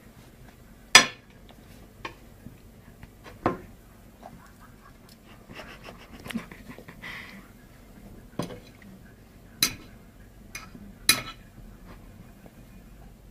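Irregular sharp clinks and knocks of a dish or bowl, about seven over the stretch, the loudest about a second in.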